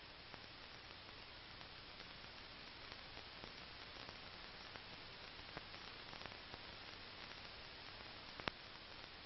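Faint steady hiss and hum of an old film soundtrack, with scattered soft crackles and one sharper click near the end.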